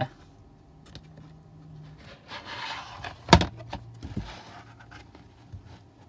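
A stiff cardboard page of a children's board book being turned by hand. The page rustles as it slides, gives one sharp snap a little past halfway through, then rustles again as it settles.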